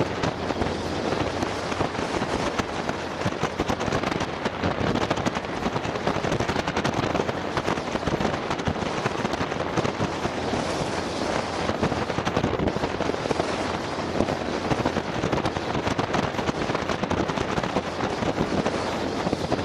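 Wind buffeting the action camera's microphone on an open Polaris Slingshot three-wheeler under way: a steady, dense crackle with no clear engine note.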